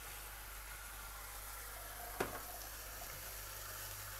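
Zucchini, cherry tomatoes and garlic sizzling gently in a frying pan over low heat, with a pot of pasta boiling alongside. There is one short knock about two seconds in.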